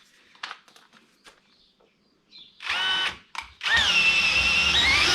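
Power drill with a 6 mm bit boring into a wiper switch knob: faint clicks of handling, then a short burst about two and a half seconds in, and a longer run from just past the middle whose pitch sags under load and rises again near the end as the bit bites hard into the work.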